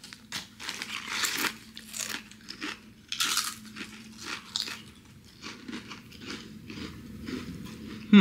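Ridged potato chips (All Dressed Ruffles) being bitten and chewed: irregular crisp crunches in quick clusters.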